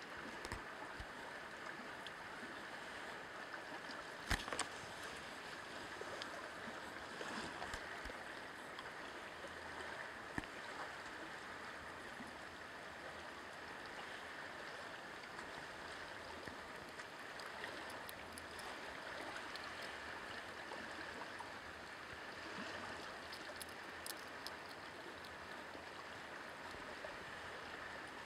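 A steady rushing noise with a few faint clicks and rustles, the sharpest click about four seconds in.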